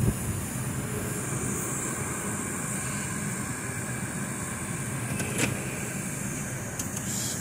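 Steady rumble of a car running, heard from inside the cabin.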